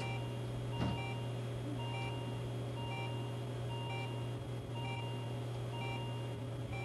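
Simulated patient monitor giving a short two-note beep about once a second, in step with a heart rate of about 61, over a steady low hum. The regular pulse beep is the sign of a restored perfusing rhythm after the resuscitation.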